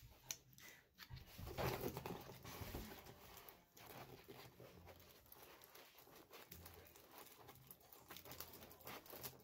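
Faint rustling and crinkling of a foil balloon and latex balloon being handled, as a cut latex 260 balloon is rolled into the foil balloon's neck and tied.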